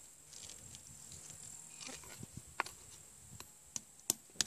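A hammer tapping on a battery: a few light, sharp knocks, sparse at first and closer together near the end, where they are loudest.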